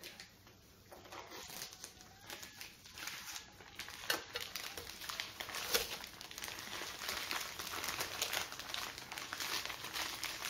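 Plastic food packet crinkling and rustling as it is handled and squeezed to empty marinated pork onto a hot plate. It starts about a second in, with many short crackles.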